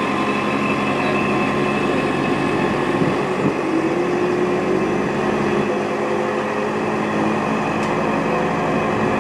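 Wheeled excavator's diesel engine running steadily while its hydraulic boom positions a man-basket beside a pole.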